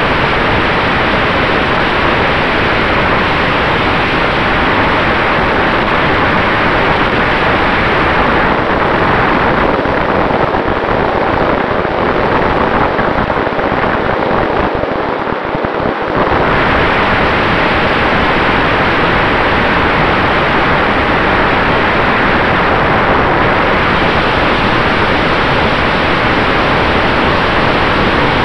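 Steady, loud rushing noise heard from a camera riding on an RC model Maule airplane in flight: propeller and airflow over the microphone, with a faint steady hum underneath. The rush eases briefly about fifteen seconds in.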